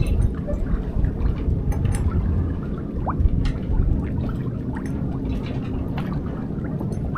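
Water gurgling and lapping against the hull of a Catalina 36 sailboat sailing slowly in light wind, with irregular small splashes and clicks. A brief rising squeak comes about three seconds in.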